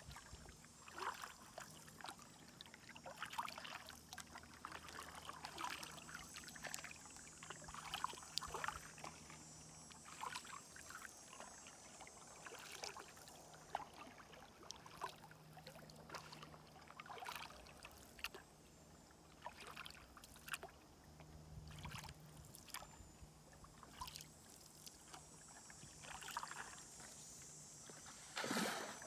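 Canoe paddles dipping into and pulling through calm river water, making soft splashes and drips every second or two.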